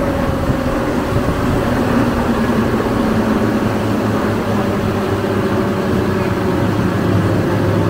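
Tour boat's engine running steadily at cruising speed, a constant drone with a rushing hiss of wind and water over it.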